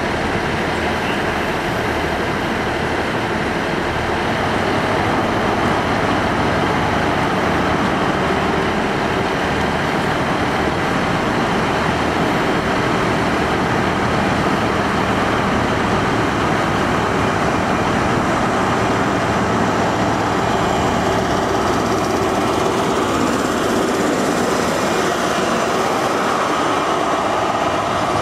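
Diesel engine of an InterCity 125's class 43 power car running steadily as the train moves slowly along the platform.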